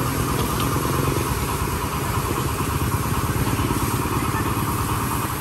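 Motorbike engine running steadily at an even speed, with a fast, regular pulsing beat.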